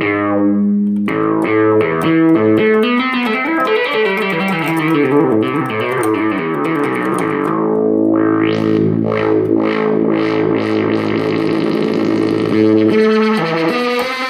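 Sequential Circuits Pro-One analog monophonic synthesizer playing a run of quickly changing buzzy, plucky notes. About eight seconds in, a series of short notes comes in with a brighter, sharper tone.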